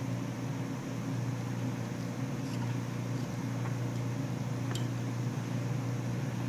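A steady low machine hum, with a few faint clicks of a screwdriver tip touching the motorcycle wheel hub and bearing.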